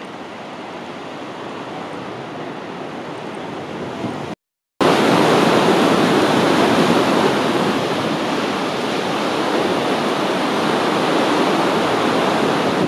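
Sea waves washing against a rock and concrete breakwater: a steady rushing noise. It cuts out for a moment about four seconds in and comes back louder.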